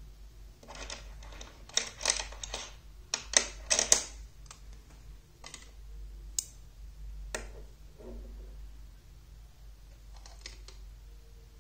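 Metal magnet rods and steel balls clicking and clacking as they snap together and are handled: a quick run of clicks over the first few seconds, then single clicks about a second apart, and a short cluster of clicks near the end.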